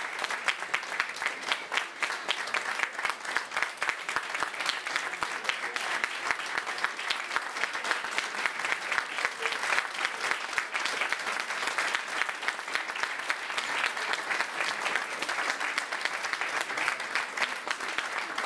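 Audience applauding, a steady, dense clapping that goes on throughout.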